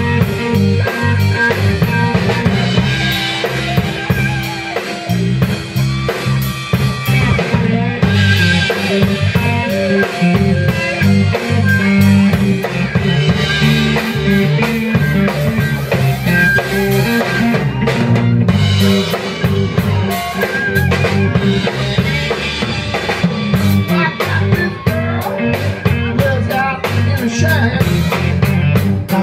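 A live blues-rock band playing an instrumental passage with no singing: two electric guitars, bass guitar and drum kit.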